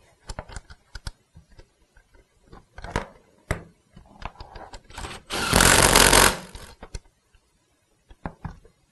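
Cordless power driver running a bolt into a steel seat frame in one burst of about a second and a half, a little past halfway. Before it, a string of clicks and knocks from tools and metal seat parts being handled.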